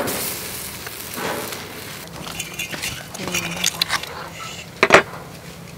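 Meat hissing over a charcoal grill at the start, then light metal clinks and one sharp knock near the end as the grilled pig head is handled with tongs on a metal tray.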